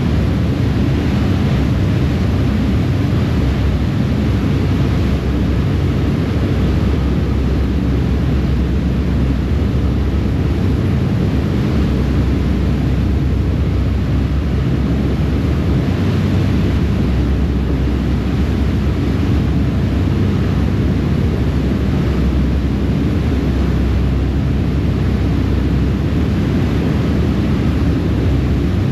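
Steady, loud low rumble of a harbour ferry under way, its engines running with the water churning in its wake.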